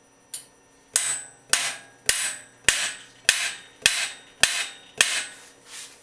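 Bronze hammer striking a headset top race holder to drive it into the head tube of a 1970 Schwinn bicycle frame: a light tap, then about nine sharp metallic blows at a steady pace of a bit under two a second, each with a short ring, the last one softer.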